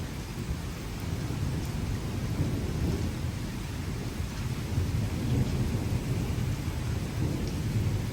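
Thunderstorm: a low, continuous rumble of thunder over steady rain, swelling several times.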